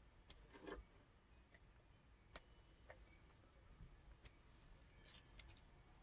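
Near silence with a few faint, scattered clicks and crinkles of plastic wrapping being picked off a liquid eyeliner pen.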